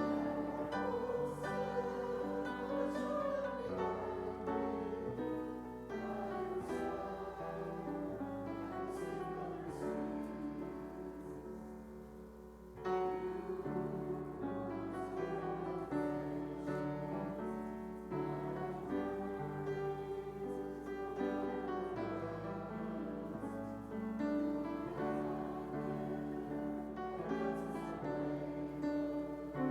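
Instrumental keyboard music, a piano playing a slow, chord-based piece, with a brief softer passage about twelve seconds in.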